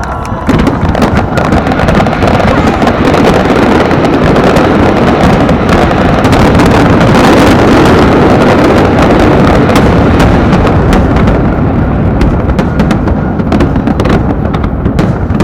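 Fireworks going off in a dense, continuous barrage of booms and crackles, loud enough to nearly overload the recording. The high crackle thins out somewhat after about eleven seconds.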